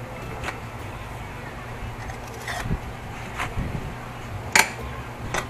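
Scattered metal clinks and a couple of dull knocks as hand tools and a steel pipe are picked up and handled, over a low steady hum; one sharp clink about four and a half seconds in is the loudest.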